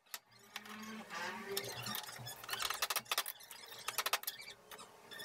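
A kitchen knife tapping and scraping against mud crab shells and a wooden chopping board as the crabs are cleaned, a run of sharp irregular clicks.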